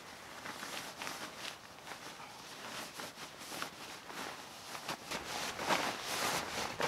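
Synthetic fabric rustling and swishing as a camouflage nylon bivy bag is handled and stuffed into a grey stuff sack, in uneven strokes that grow louder near the end.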